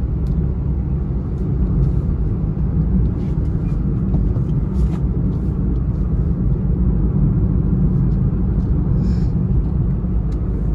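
Cabin noise of a moving car at highway speed: a steady low rumble of engine and tyres on the road, with a few faint clicks.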